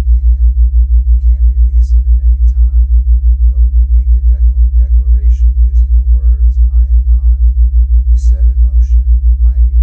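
Theta-wave brainwave tone: a loud, low hum pulsing steadily about five times a second.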